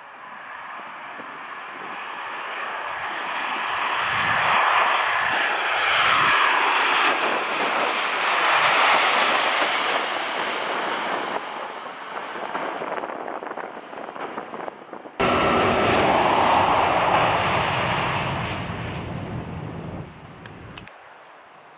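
Boeing 737-800 airliner's CFM56 turbofan engines on final approach, growing louder as the jet passes low overhead about nine seconds in, then fading. After an abrupt cut the engines are heard again as the airliner comes in over the runway to land, stopping suddenly near the end.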